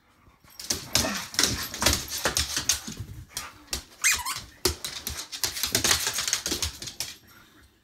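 Dogs playing: a busy run of short, sharp sounds with a few brief sliding squeaks, starting about half a second in and stopping abruptly about seven seconds in.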